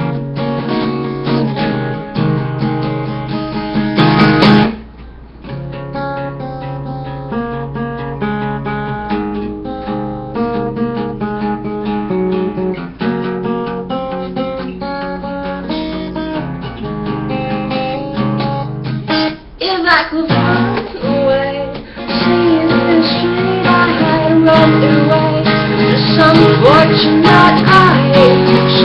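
Acoustic guitar playing chords in a song, with brief breaks about five seconds in and again around twenty seconds in. From about twenty-two seconds the playing grows louder and a wavering, sliding melody line rises over the chords.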